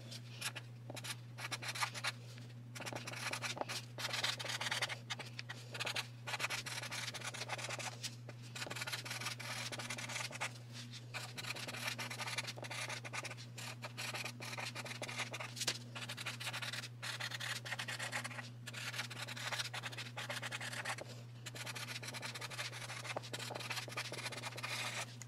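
Felt-tip Sharpie marker scratching across a pink card while a note is handwritten, in many short irregular strokes, over a steady low hum.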